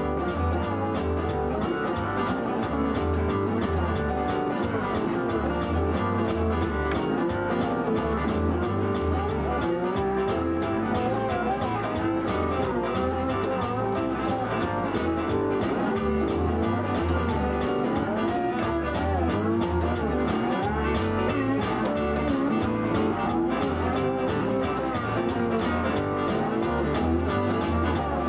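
Electric guitar, a goldtop Gibson Les Paul, playing a blues piece over a steady, repeating bass line.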